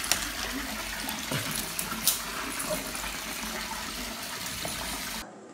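Steady rush of running water, as from a bathtub tap filling the tub, with a few faint clicks. It cuts off abruptly near the end.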